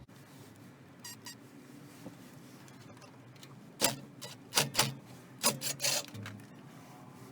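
Hand-work on the car's parts: two faint clicks, then a cluster of sharp knocks and short scrapes between about four and six seconds in.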